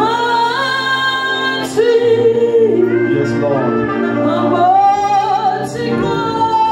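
Worship singing: a voice holding long notes that slide between pitches, over steady sustained instrumental backing.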